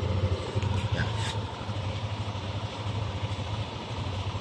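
An engine idling steadily: a low, pulsing hum that does not change, with one short scuff about a second in.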